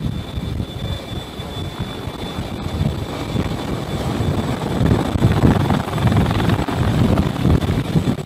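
CH-53E Super Stallion helicopter hovering low overhead, its rotor downwash buffeting the microphone with a gusty rumble and a steady high whine above it. The noise grows louder about halfway through as the helicopter takes up the slung load.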